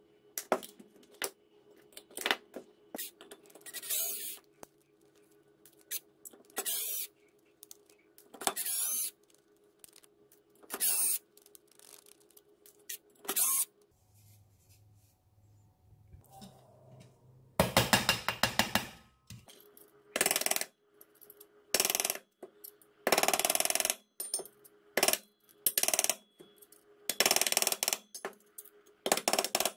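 Small RC jet turbine engine parts being handled and worked by hand: irregular clinks, scrapes and knocks of metal parts and tools, with short sharp taps near the end as a hammer is worked against the metal casing.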